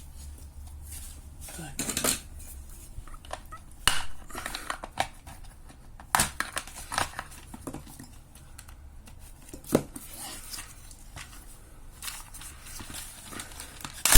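Metal tools and parts clicking, scraping and knocking on an old vacuum cleaner motor being prised apart by hand, in scattered sharp taps. At the very end a sharp snap as a brush spring shoots out of the motor.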